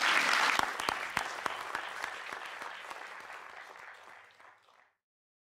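Audience applauding, a dense patter of claps that fades out steadily over about four seconds to silence.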